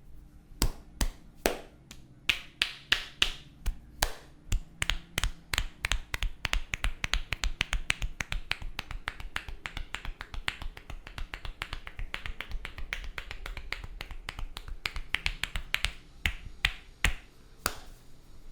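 Hair cracking during a head massage: a long run of sharp snaps as the barber's hands crack strands of hair against the scalp. The snaps start about two a second, quicken after a few seconds, and stop just before the end.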